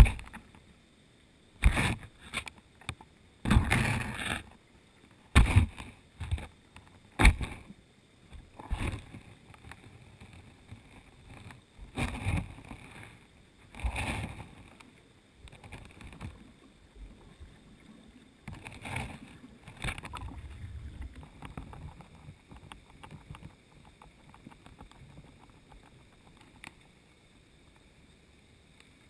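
Muffled underwater knocks and thuds against a submerged camera housing, irregular and most frequent in the first half, with the river current's dull rush between them and a faint steady high whine underneath.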